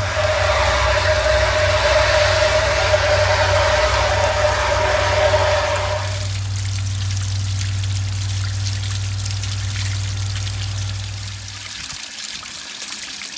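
Water rushing out of the open anode port of a storage hot water tank during a tank flush, splashing over a hand and onto the ground; the flow sound drops off about halfway through. A steady low engine-like hum runs underneath and stops shortly before the end.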